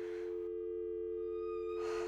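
Telephone dial tone: a steady, unbroken two-note hum, the North American dial tone, left on the line after the call drops. Two short bursts of hiss cross it, one at the start and one near the end.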